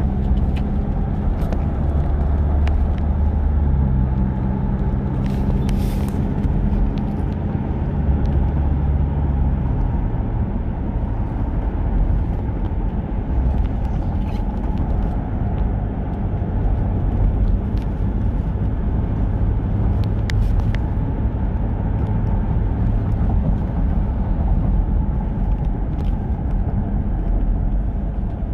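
Steady engine hum and road rumble of a moving vehicle, heard from on board; the engine note changes pitch a couple of times in the first ten seconds, then settles.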